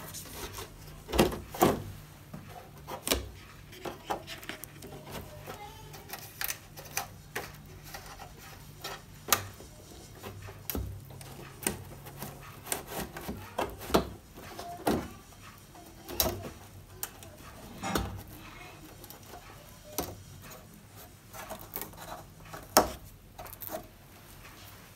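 Handling noises from a thin plastic reflector sheet being laid into an LED TV's back panel over the backlight strips: irregular light clicks and taps with rubbing and rustling in between.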